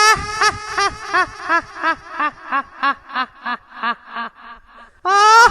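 High-pitched ghostly cackling laugh, a horror ringtone sound effect. It opens with a drawn-out cry, then runs on in evenly spaced 'ha' pulses, about three a second, that sink in pitch and fade. The laugh starts over loudly near the end.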